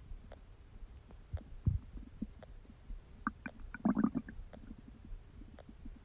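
Human stomach and intestines gurgling while digesting: scattered small pops and clicks, a low thud about two seconds in, and a burst of bubbly gurgles with squeaky pitched notes a little past the middle.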